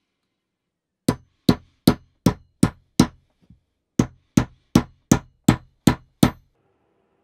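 An old rusty hammer striking a wooden wedge into the eye of a ball peen hammer head to lock the new wooden handle in place. Six sharp blows, a short pause, then seven more, at about three a second.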